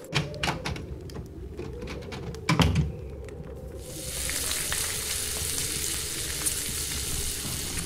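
A few sharp knocks and one louder thump, then from about four seconds in a steady sizzle of food frying in a pan, with small crackles.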